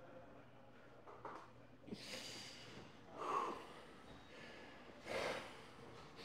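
A man breathing out hard through the nose three times while straining in bodybuilding poses, the middle breath loudest.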